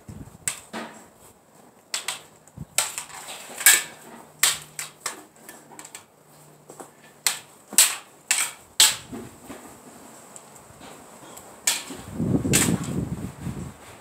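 Sparring weapons striking each other in irregular flurries of sharp knocks. Wind buffets the microphone near the end.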